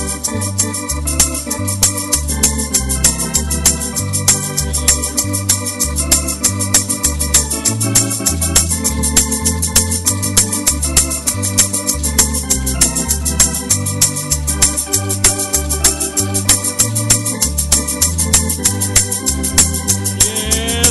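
Instrumental break in a gospel song: an organ plays the tune over a moving bass line and a steady beat, with no singing.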